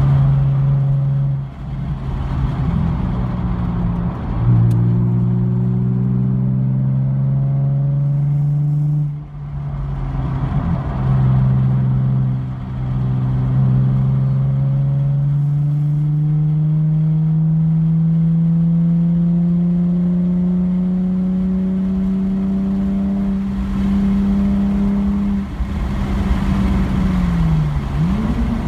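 A car engine running hard on a track lap. Its note dips and steps several times in the first half, then climbs steadily for about ten seconds as the car speeds up along a straight. Near the end the pitch drops sharply and comes straight back up.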